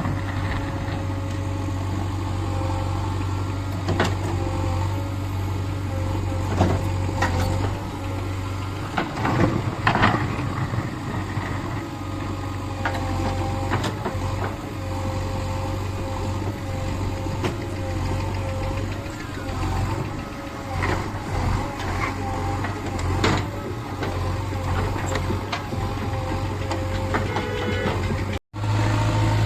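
Backhoe loader's diesel engine running steadily, with a wavering whine over the engine hum and occasional knocks and clanks. The sound drops out briefly near the end.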